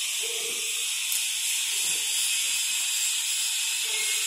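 Steady hiss that holds at an even level.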